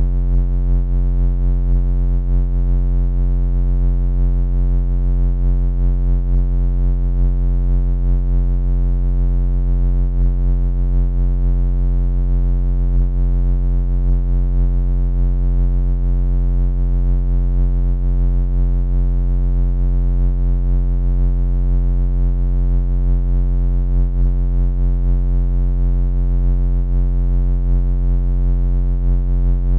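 Synthesized laser sound effect: a continuous low electronic buzz with many overtones, holding steady in pitch and loudness without a break.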